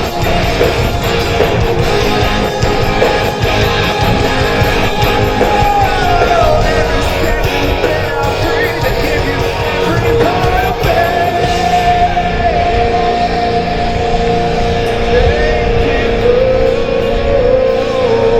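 Live rock band playing: electric guitars and drums, with the lead guitar holding long sustained notes and bending one down about six seconds in.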